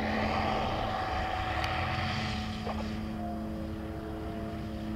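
Revolt weight-shift trike's engine and pusher propeller droning steadily as it comes in to land low over the runway, its pitch dipping slightly about three seconds in.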